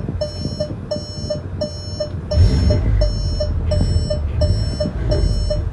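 Rapid electronic warning beeping, about three beeps a second, throughout. About two seconds in, the Golf R's tuned, turbocharged 2.0-litre EA888 four-cylinder is revved in neutral for about three seconds, a deep rumble with a brief hiss at the start. The owner suspects an exhaust or boost leak behind its gurgle.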